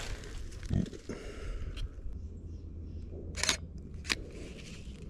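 A few short, sharp clicks, the loudest a little over three seconds in, over a steady low outdoor rumble.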